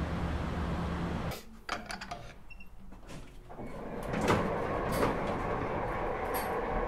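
Old cage-walled elevator worked by an operator's lever: scattered clicks and clunks, then from about four seconds a steady rattling run with a sharp clank. A low steady hum before it stops a little over a second in.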